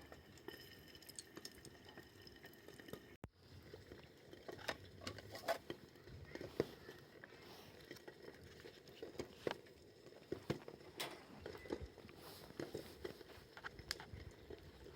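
Wood campfire crackling faintly, with irregular small pops and snaps over a low steady hiss.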